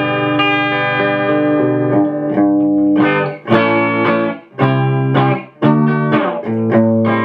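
Electric guitar playing a run of ringing chords in clean tone through a small 2-watt valve-style practice amp, the fuzz pedal switched off. Each chord is held about a second or two, with brief breaks between. No 120 Hz mains buzz comes from the amp.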